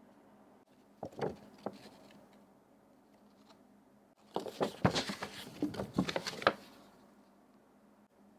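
Hands handling packaging during an unboxing: a few short rustles and knocks about a second in, then a dense flurry of rustling and small knocks for about two seconds past the middle.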